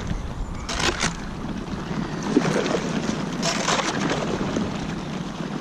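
Paddle strokes breaking thin canal ice, two crunching splashes about two and a half seconds apart, over a steady hiss as an inflatable kayak's hull pushes through the ice sheet.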